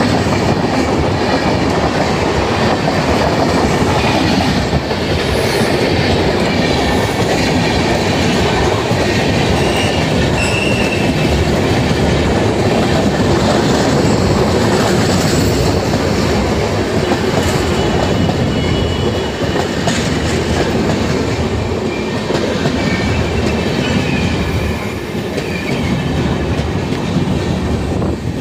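Rajdhani Express coaches passing close by: a loud, steady rumble of steel wheels on the rails with clickety-clack over the rail joints and a few faint wheel squeals.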